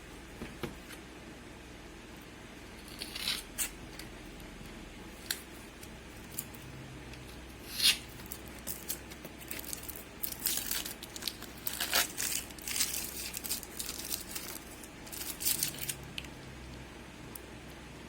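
Small handling noises at a workbench: scattered clicks, scrapes and crinkling, busiest in the last third, over a faint steady hum.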